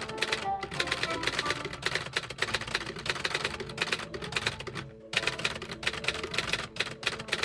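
Rapid, irregular clatter of clicks, like keys being struck, over background music. The clicking pauses briefly about five seconds in, then resumes.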